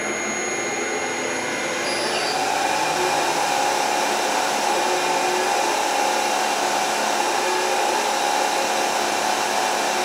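Denford Orac CNC lathe running, its spindle motor and drive making a steady whirring hiss under constant surface speed control as the parting tool is fed in. The sound grows slightly louder over the first couple of seconds, and a steady tone joins it about two seconds in.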